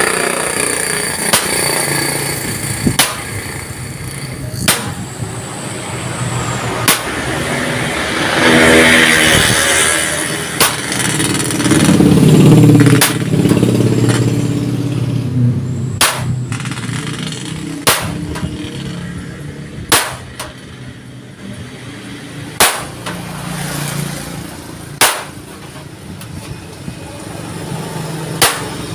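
Single sharp hammer blows on steel plate, one about every two seconds. A motor vehicle's engine rises and passes loudly about a third of the way in.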